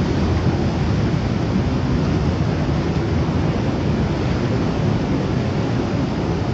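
Heavy ocean surf breaking and washing over rocks, a steady, deep rushing noise.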